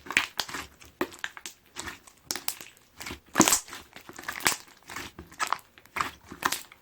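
Green clear slime squeezed and pressed by hand, its trapped air bubbles popping in a run of irregular wet crackles and pops, loudest about halfway through.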